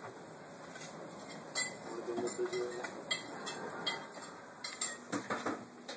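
Scattered light clinks and clatters of dishes and cutlery, a few sharp knocks among them.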